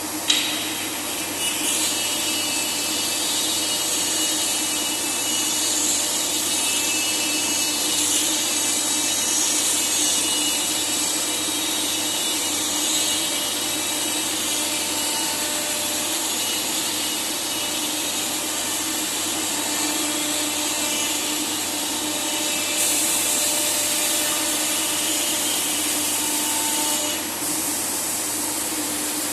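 CNC router running steadily, its spindle milling wood with a constant whine and hiss. A sharp click about a quarter second in, and a brighter, harsher hiss for a few seconds near the end.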